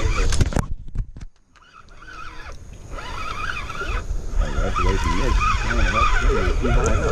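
Spinning reel being cranked to reel in a hooked fish, its gears whirring in wavering, rising and falling tones with a break about a second in, over a steady low rumble.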